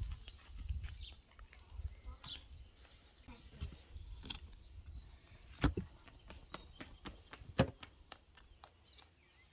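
Kitchen knife cutting through a goat's hoof onto a wooden chopping stump: scattered small knocks and scrapes, with two sharp, louder blows into the wood a little past halfway and again about two seconds later.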